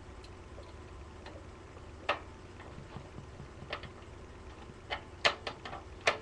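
Screwdriver and screws clicking and tapping against a desktop computer case while the power supply is screwed in. The clicks are sharp and irregular, a few spread out at first and then a quick cluster in the last second and a half.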